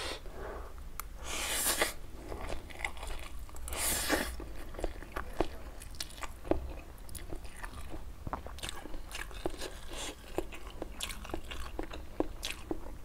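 Close-miked eating of instant noodles: steady wet chewing with many sharp mouth clicks and smacks, and two longer slurps about one and a half and four seconds in.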